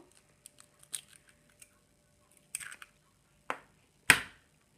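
Eggs being cracked into a glazed earthenware dish: a few soft clicks and shell crackles, then one sharp tap about four seconds in as the next egg is struck.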